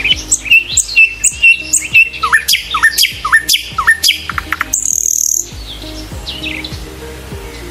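Many birds chirping and calling in quick succession, including a run of short downward-sliding calls, with a brief harsh high screech a little after halfway. The calls thin out over the last couple of seconds.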